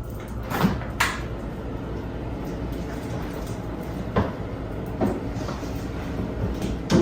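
A few short knocks and clatters of things being handled and set down, about five over several seconds, over a steady low hum.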